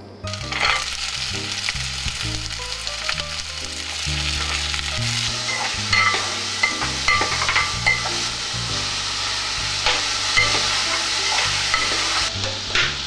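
Sliced zucchini, cherry tomatoes and onions stir-frying in olive oil in a pan: a steady sizzle, with the stirring utensil scraping and now and then tapping against the pan.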